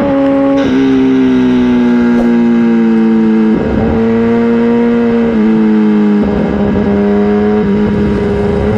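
Superbike's inline-four engine running hard at high speed, a loud, steady high-pitched drone whose pitch sags slightly and steps a few times, with patches of rushing noise over it.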